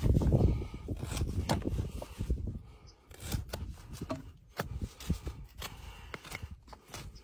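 Hoof knife paring horn from a horse's sole and frog: a run of scraping cuts, loudest in the first second or so, then scattered short scrapes and clicks.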